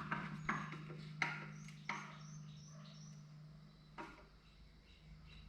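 A handful of short, sharp taps that grow fainter and stop about four seconds in, over a steady low hum.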